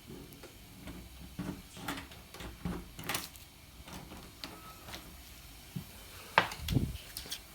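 Irregular knocks, clicks and rustling from things being handled, with a sharp knock and a dull thud about six and a half seconds in.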